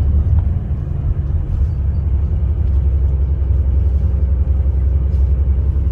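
Loud, steady low rumble of a vehicle in motion.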